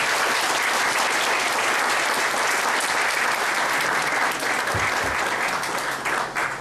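Audience applauding: steady clapping of many hands, thinning out near the end.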